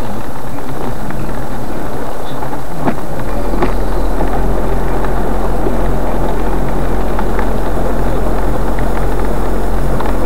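Steady, loud rumble of vehicle traffic on a flooded street. A deeper engine drone comes in about three seconds in, with a few short knocks.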